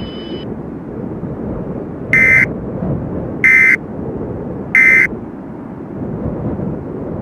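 Three short, harsh digital data bursts about 1.3 seconds apart: the SAME end-of-message (EOM) tones that close an Emergency Alert System message. They play over a steady low noise bed, and a faint high steady tone stops about half a second in.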